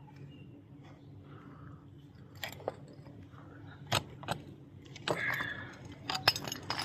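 Several sharp metallic clinks and knocks of tools and car parts being handled, spread through the second half, one with a brief metallic ring about five seconds in and a quick cluster near the end.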